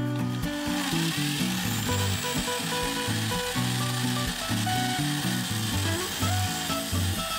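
Background music over the steady running of a drill press motor spinning a wooden sanding drum.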